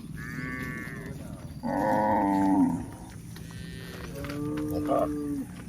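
Cows mooing: three separate calls, the loudest about two seconds in and a lower, longer one near the end.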